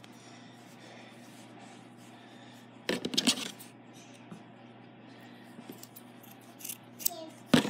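Scissors snipping through the yarn of a pom-pom, a few quick cuts about three seconds in and another burst of snips near the end.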